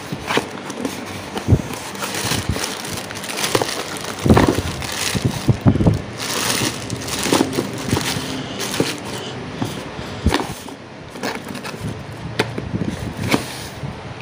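Unpacking a spinning reel: cardboard box flaps and a paper insert rustling, and a clear plastic bag crinkling as the reel is pulled out, with irregular small knocks and clicks of handling.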